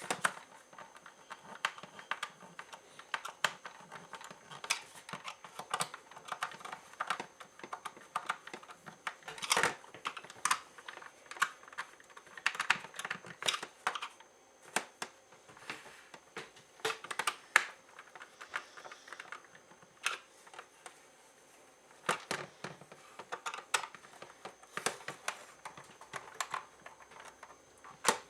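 Screwdriver clicking and scraping as screws are driven into the plastic shell of a Nerf Rival Apollo blaster, with the plastic parts knocking as they are handled. The clicks come irregularly, with a short lull about two-thirds of the way through.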